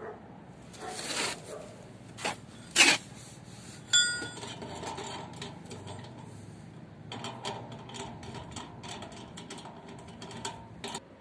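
Metal handling noise from a satellite dish's mounting bracket being worked by hand: a few sharp knocks in the first three seconds, a clank about four seconds in that rings briefly with a metallic tone, then a run of small rattling clicks.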